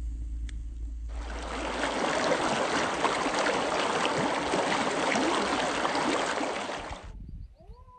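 Shallow stream rushing and splashing over rocks, starting about a second in and cutting off suddenly near the end. Before it, a campfire's low rumble with a single crackle; just after it, a short bird call.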